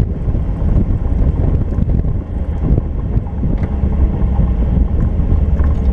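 Factory Five Cobra's V8 engine running steadily at low speed, a deep rumble with wind buffeting the microphone in the open cockpit.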